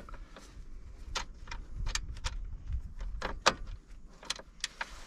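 Irregular metallic clicks and clinks of tools and metal parts being handled as the ATV winch's face plate is fitted back on, over a low rumble. The sharpest clank comes about three and a half seconds in.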